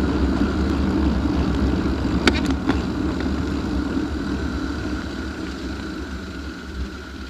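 Wind buffeting the microphone and tyres rumbling over cobblestones as the rider moves through the streets, with a couple of sharp knocks a little over two seconds in. The noise slowly fades as the ride eases off.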